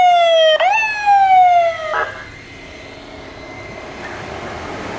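Siren of a Honda ST1300 police motorcycle: two sweeps, each jumping up sharply and then falling more slowly, then a short buzzing blip about two seconds in before the siren cuts off, leaving quieter traffic noise.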